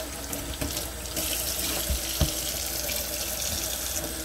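Kitchen faucet running, its stream splashing over a silicone popsicle mold and into a stainless steel sink; the splashing gets louder about a second in. Two short knocks come around two seconds in.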